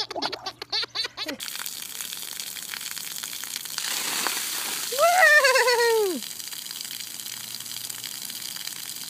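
A baby laughs, then splash-pad fountain jets spray with a steady hiss. About five seconds in, a voice gives one loud call that falls in pitch.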